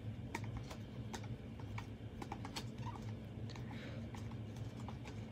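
Stack of football trading cards being flipped through and shuffled by hand, giving a run of soft, irregular clicks and ticks as card edges snap past each other, over a faint steady low hum.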